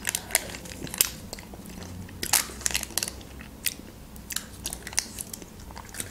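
Mouth sounds of a person eating soft vanilla milk pudding: licking it off a foil lid and tasting it, with wet smacks and clicks at irregular intervals.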